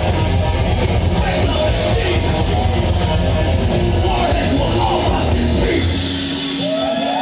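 Live heavy metal band playing loud, with distorted electric guitar, bass and drum kit. About six seconds in the drums and bass drop out, leaving a guitar ringing on with sustained high notes as the song ends.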